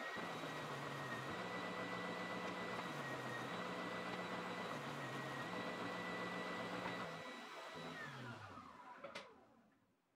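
Benchtop oscillating spindle sander motor starting up and running steadily with a high whine over a low hum that steps up and down in pitch. About eight seconds in it is switched off and spins down with falling pitch, followed by a single click.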